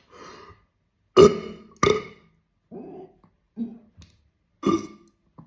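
A man's short, forced burps, about half a dozen in a row. The loudest are about one and two seconds in, another comes near the end, and weaker ones lie between. They are small burps, not the big one he is trying for.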